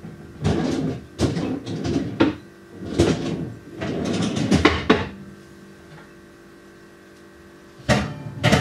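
Oven door opened and a metal baking tray pulled out: a run of clatters and knocks for about five seconds, then a pause and another clatter near the end.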